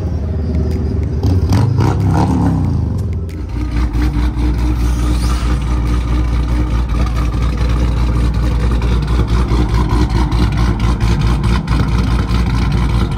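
Car engine revving up in the first few seconds, then running with a loud, steady low rumble close by.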